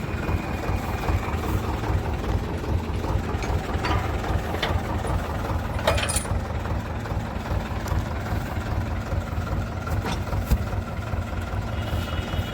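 Swaraj tractor's diesel engine running steadily with a low throb, and a few sharp clanks scattered through.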